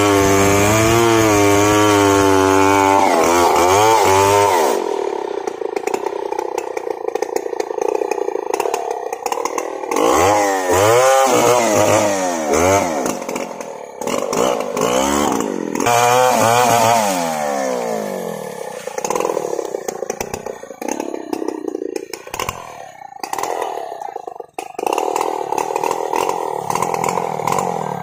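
Two-stroke chainsaw with a long bar cutting into a large mahogany trunk at full throttle. About four seconds in its pitch rises as it comes out of the cut. It then runs at a lower speed with several quick revs up and down, and settles to a steady low run near the end.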